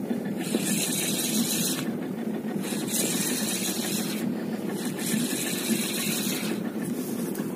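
Boat engine running steadily, with a high hiss that comes and goes about four times.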